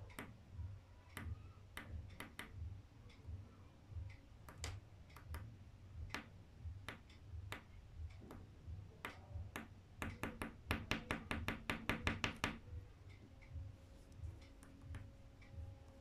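Scattered light taps and clicks, with a quick run of about a dozen sharp taps in fast succession from roughly ten to twelve and a half seconds in, over a low rumble that pulses about twice a second.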